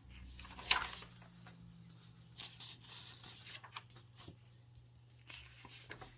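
Faint scratching and rustling handling sounds with several sharp clicks, the loudest a little under a second in, over a low steady hum.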